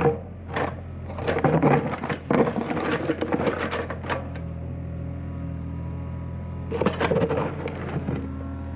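An engine runs steadily throughout, with bursts of clattering and scraping: the first for a few seconds early on, then a shorter one about seven seconds in.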